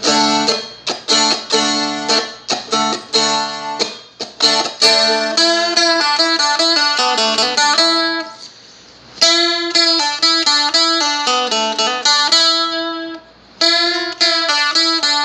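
Seagull Merlin, a four-string dulcimer-style fretted instrument in open D, playing a lead-in lick: a short run of picked notes repeated over and over, with two brief breaks about eight and thirteen seconds in.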